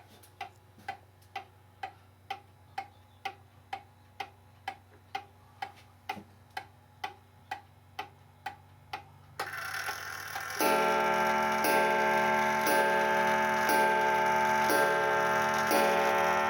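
Circa-1900 Ansonia time-and-strike clock ticking evenly, about two ticks a second. About ten seconds in it starts striking the hour, roughly one ringing blow a second, each stroke sounding over the last. This is a freshly repaired movement running in beat.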